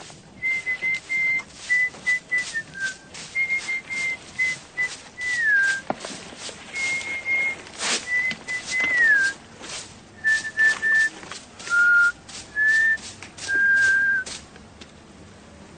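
A man whistling a tune of held notes, a few of them sliding down, over repeated scratchy strokes of a broom sweeping. The whistling stops about two seconds before the end.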